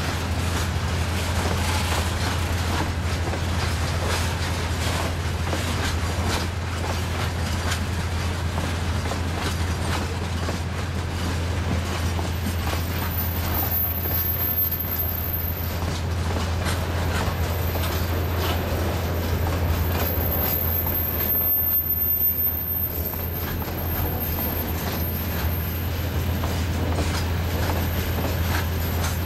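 Freight wagons of a long train rolling past close by, a steady rumble and rattle of wheels on the rails over a constant low drone.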